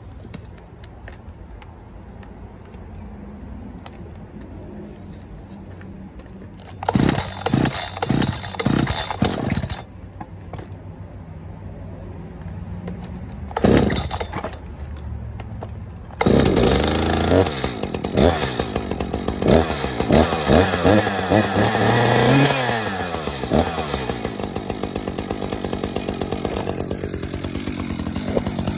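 Echo CS-590 Timberwolf two-stroke chainsaw being started from cold: rough sputtering pulls on the starter cord, then the engine catches a little past halfway, is revved up and down several times, and settles to a steady idle.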